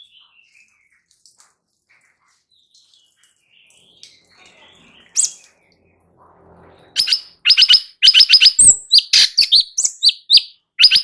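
Cucak cungkok singing: faint scattered calls at first, then from about seven seconds in a loud, fast run of short, sharp high chirping notes.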